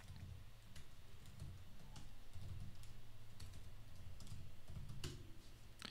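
Typing on a computer keyboard: scattered faint keystrokes, with two sharper key presses near the end, over a steady low hum.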